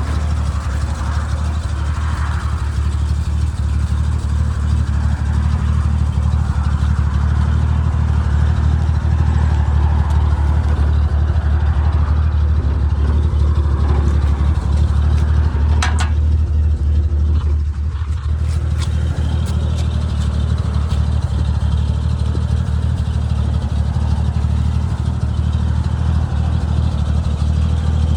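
1947 Chevrolet truck's inline six-cylinder engine running steadily with an even low hum, with a few sharp clicks around the middle.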